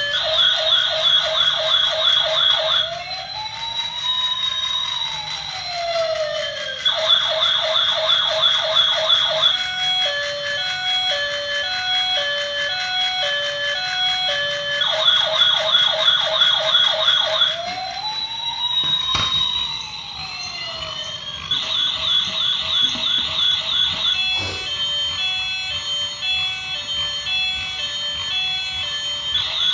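Toy police car's electronic siren, alternating between a fast warbling yelp and a slower rising-and-falling wail, with a steady beeping electronic tune underneath. One sharp click comes about two-thirds of the way through.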